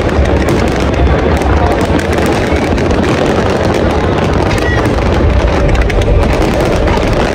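Fireworks display going off continuously: a dense, steady mix of bangs and crackle with a deep rumble underneath, amid crowd noise.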